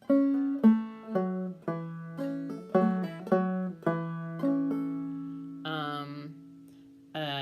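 Clawhammer banjo played slowly, a string of single plucked notes and brushed chords with the notes left ringing, ending on a long note that fades away.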